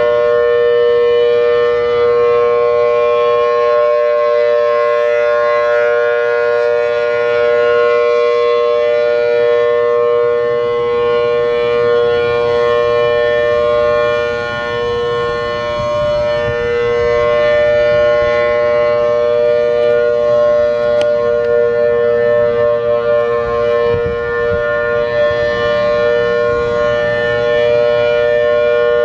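Federal Sign & Signal Thunderbolt 1000 outdoor warning siren sounding its steady Alert signal: a held two-note chord from its 4/5-port rotor. The loudness swells and fades as the head slowly rotates, dipping briefly about halfway through and wavering near the end.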